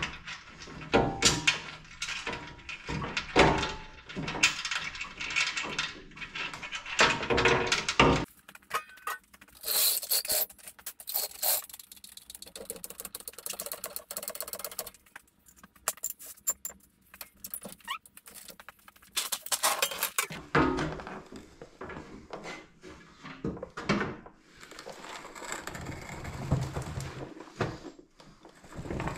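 Metal clinking, jangling and knocking of a skid plate and its bolts, washers and spacers being handled and fitted, in irregular bursts with pauses, busiest in the first eight seconds or so.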